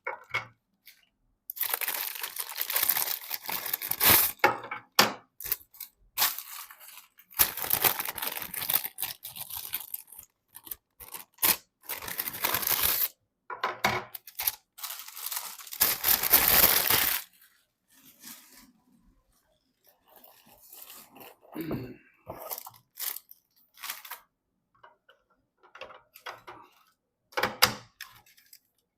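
Packaging being torn and crinkled in several long spells, followed by lighter clicks and knocks as parts are handled.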